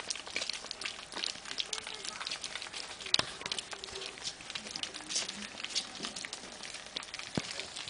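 Several Shih Tzu puppies lapping and smacking at a plate of soft mushed puppy food: a dense, irregular run of small wet clicks. Faint whimper- or voice-like tones sound now and then underneath.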